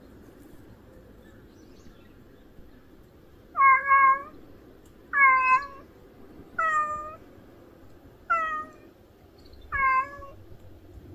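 A stray cat meowing five times, roughly a second and a half apart. Each cry is a drawn-out call of about half a second that dips slightly in pitch, and it has an odd, unusual sound to it.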